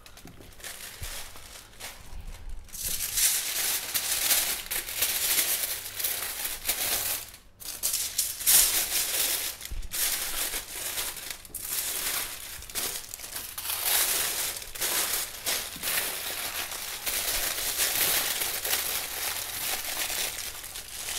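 Aluminium foil crinkling and crumpling as hands fold it around a wrapped leg of lamb, a continuous rustle with short pauses.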